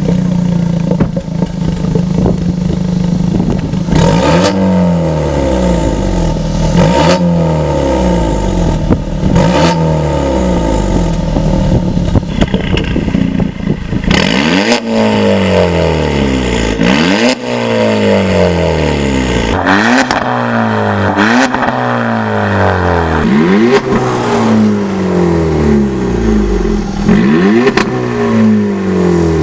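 Audi A3 1.4 TFSI four-cylinder turbo petrol engine free-revved about ten times through an Armytrix valvetronic exhaust, each rev rising quickly and falling back toward idle. From about halfway the revs come louder and deeper, as the exhaust valves are switched open by remote.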